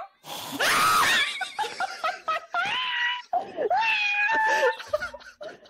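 Three women bursting into hard laughter together, with a loud shrieking laugh about half a second in, then high, squealing laughs that die down near the end.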